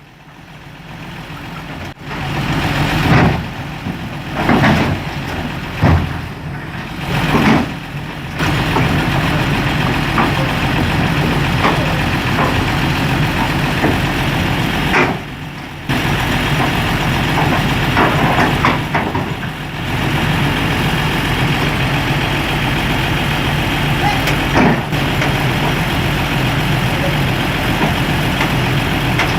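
Heavy diesel engine of construction machinery running steadily, with several louder surges in the first eight seconds and a brief drop about fifteen seconds in.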